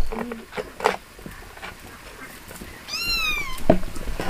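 A cat meows once about three seconds in: a single drawn-out, high call that rises slightly and then falls. Soft crackling from the charcoal embers is heard under it.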